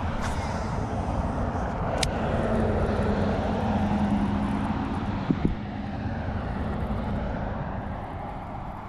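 A distant engine passing by, a low rumble that swells toward the middle and fades again, with a few small clicks from handling the gear.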